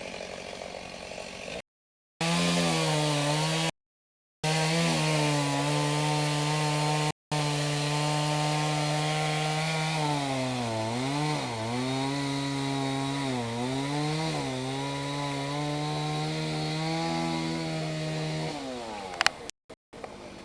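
Chainsaw running at high revs, its pitch dipping several times as the chain bogs into the wood, then falling away as the throttle is released near the end. The sound cuts out completely a few times in the first seconds.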